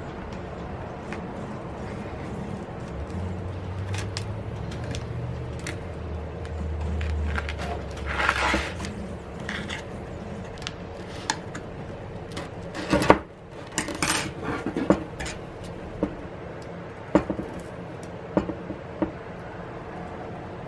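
Scattered clicks, taps and scrapes of prying tools working at the edge of an iPad Pro's glass screen assembly and aluminium frame, with a cluster of louder knocks in the second half. A low hum runs for several seconds in the first half.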